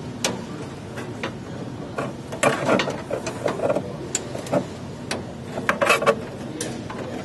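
Plastic wire-harness connectors and cables clicking and rattling against a sheet-metal chassis as they are handled and plugged in, with bunches of clicks about two and a half seconds in and again near six seconds.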